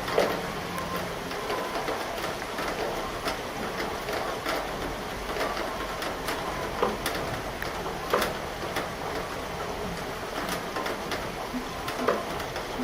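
Thunderstorm rain falling steadily, with single heavy drops tapping sharply and irregularly close by. No thunder is heard.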